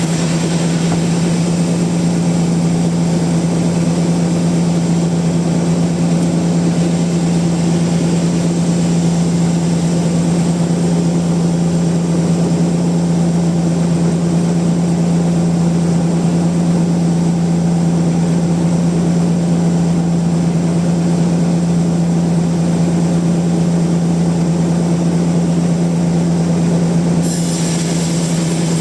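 Band sawmill machinery running at a steady pitch, a strong constant hum with a noisy edge. Near the end a brighter, hissier sound joins it.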